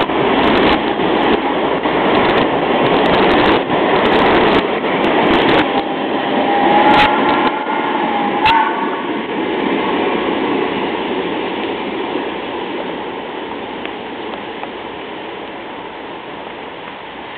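Passenger coaches of a steam train rolling past, wheels rumbling and clicking over the rail joints, with a brief high-pitched tone about seven to eight seconds in; the noise then fades steadily as the train moves away.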